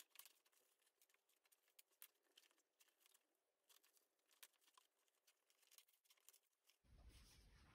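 Near silence, with faint scattered rustles and small ticks of fabric and a zip being handled.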